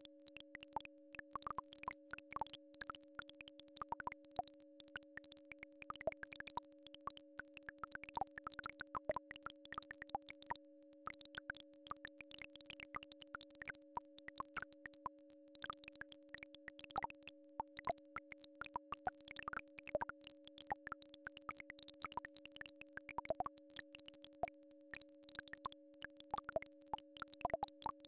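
Two steady electronic tones, one low and one higher, held unchanging as a healing-frequency track, under a dense, irregular crackle of soft clicks.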